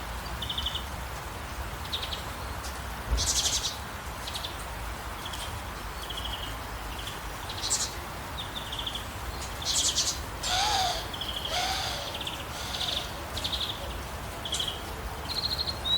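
Wild birds calling: short high-pitched chirps and trills repeated every second or so, with two longer calls about two-thirds of the way through, over a faint steady background noise.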